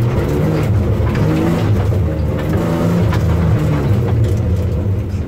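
BMW E36 320i's 2.0-litre straight-six heard from inside the cabin, running steadily at light throttle as the car slows after the finish, with a few faint clicks and rattles from the car.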